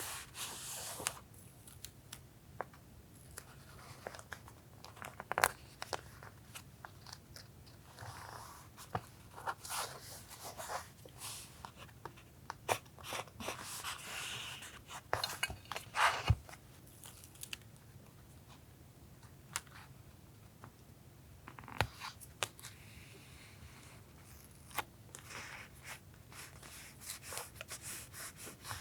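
Paper being handled for journal collage: irregular rustles, crinkles and sharp little taps of paper and stickers on a desk. A refrigerator's low steady hum runs beneath.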